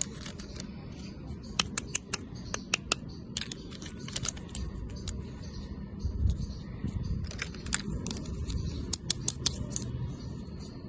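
Plastic toy and packaging being handled: irregular sharp clicks and taps over a low rumble.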